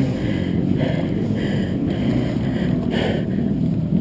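Off-road dirt bike engine revving steadily while its rear tyre spins in deep mud and sprays it: the bike is bogged down without traction.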